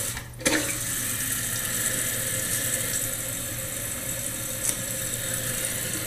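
Water running steadily through a Kohler toilet's fill valve as the tank refills, the valve fitted with its red medium-fill cap. A brief knock about half a second in.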